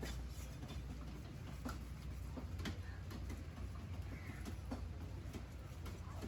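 Scattered light clicks and taps of a knife working on a fish, over a steady low hum.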